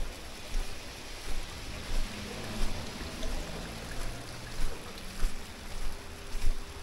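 Water flowing steadily in a narrow open channel, with footsteps on packed snow about every two-thirds of a second.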